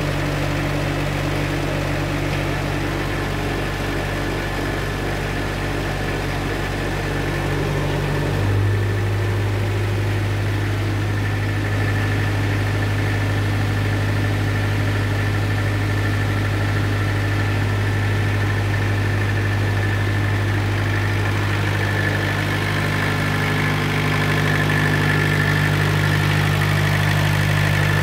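Engine of a self-generating nitrogen servicing cart running steadily at about 1500 RPM while it warms up, with a faint steady high whine over it. The engine note shifts lower about eight seconds in, and a higher tone joins it again near the end.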